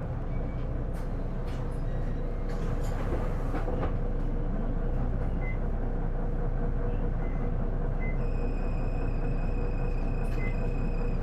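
Isuzu Erga city bus (PJ-LV234L1) heard from inside while driving: steady engine and road noise with a constant drone. About eight seconds in, a thin high-pitched whine joins. This bus makes an abnormal noise when accelerating, which the uploader suspects comes from the transmission.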